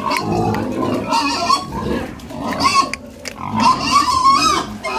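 A group of domestic pigs squealing and grunting as they crowd together, with repeated high squeals that bend up and down in pitch; the longest squeal comes about four seconds in.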